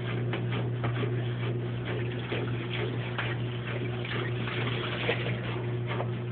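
An old, worn machine's motor running with a steady low hum, under irregular clicking and rattling.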